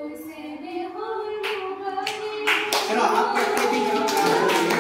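A woman's voice singing a long held note while an audience claps, the clapping starting about a second and a half in and growing thicker.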